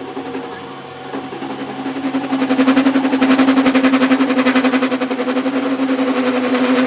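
A workshop machine running: a steady hum with a rapid, even ticking of about ten beats a second, growing louder about two seconds in.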